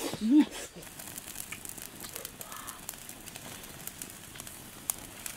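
Open wood fire crackling with scattered sharp pops, after a short vocal exclamation from a man at the very start.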